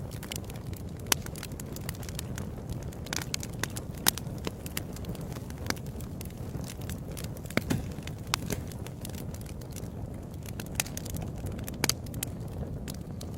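Wood fire burning in a fireplace: a steady low rumble of flames with frequent crackles and occasional sharper pops.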